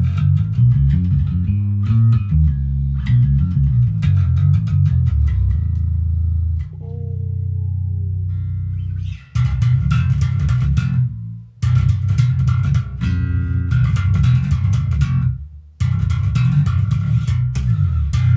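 Squier Bass VI six-string electric bass played through a Positive Grid Spark amp and cab, sounding thunderous: picked riffs of low notes, a held low note with a higher note sliding down about a third of the way in, then more riffs with two short breaks.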